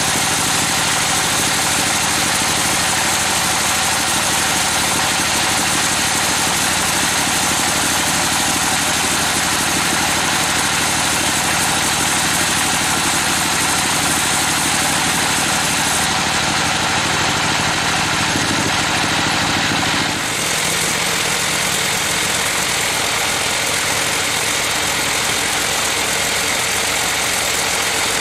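Band sawmill running steadily, its blade cutting through a trembesi (rain tree) log: a loud, even mechanical sound with a sawing hiss. The sound shifts slightly about twenty seconds in.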